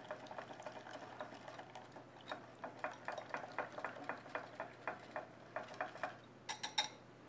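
Wire whisk beating milk into a wet peanut-butter batter in a ceramic bowl, the wires clicking against the bowl about five times a second. Near the end come three or four sharper taps.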